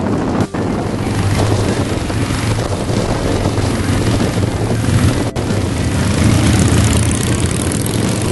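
Motorcycle engines running steadily with wind rushing over the microphone as a group of motorcycles rides along; the sound drops out for an instant about half a second in and again about five seconds in.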